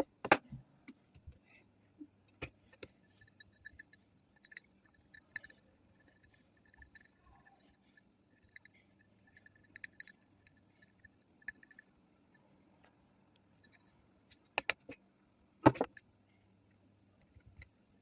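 Small metal clicks, taps and scrubbing on a Zippo lighter's metal case and chimney as the soot and flint dust are cleaned out, with a few sharp knocks, the loudest near the start and about three-quarters of the way through.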